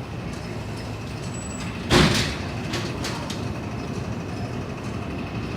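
MTR M-train metro train running through a station platform without stopping: steady rolling noise, with one loud knock about two seconds in and a few lighter knocks after it.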